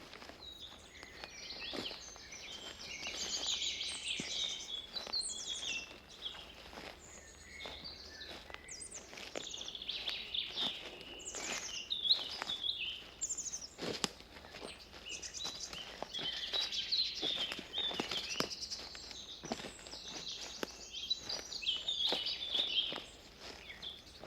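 Several forest birds singing in short, rapid, overlapping phrases, with footsteps crunching along a forest path.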